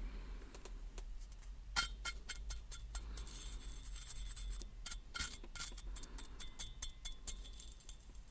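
Burning cigarette crackling irregularly, with many small sharp clicks over a faint hiss of the drag.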